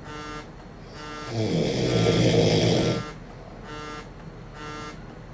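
A man snoring: one long, loud rattling snore starts about a second in and lasts nearly two seconds. A short beeping tone repeats about once a second throughout.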